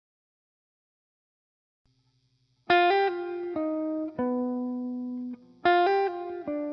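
About two and a half seconds of silence, then background music begins: a short phrase of plucked notes, each fading away, which starts over about three seconds later.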